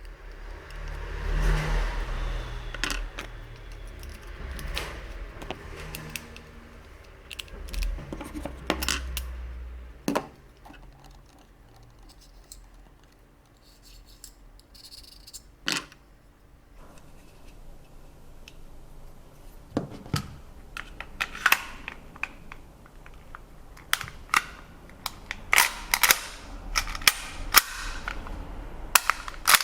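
Sharp mechanical clicks and clacks of a gas blowback airsoft pistol being handled and worked: scattered single clicks, then a quick run of clicks over the last few seconds.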